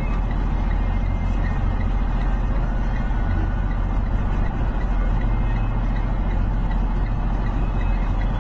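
Steady low rumble of a moving vehicle's engine and tyres, heard from inside its cab.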